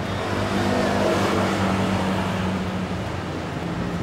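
Motor vehicle driving past close by: engine and tyre noise swell to a peak about a second in and then ease off, over a steady low engine hum.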